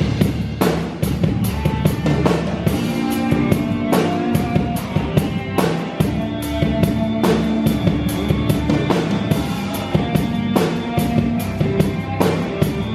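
Rock band playing, with a drum kit to the fore: steady kick and snare hits several times a second under sustained guitar and bass notes.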